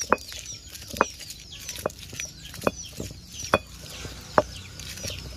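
Chicken clucking: single short clucks repeating evenly, about one a second, with faint small-bird chirps above them.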